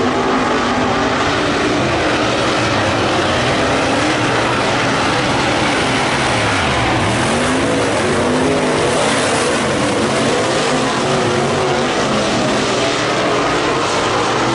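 Dirt-track modified race car engine running hard around the oval, its pitch dipping about halfway through and climbing again as the car goes through the turn and back onto the throttle.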